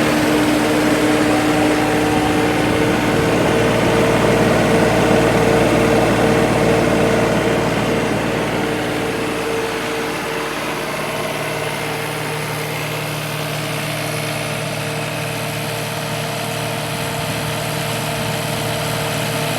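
Ditch Witch SK1550 mini skid steer's engine running steadily; about eight seconds in it drops off to a quieter steady run.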